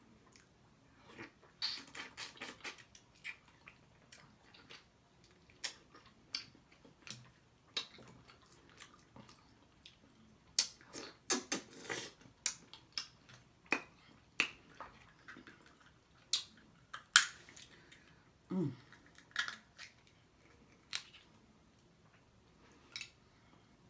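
Close-miked eating of a seafood boil: irregular wet lip smacks and chewing clicks, some in quick runs, with the loudest smack about seventeen seconds in. A brief low vocal hum comes just after it.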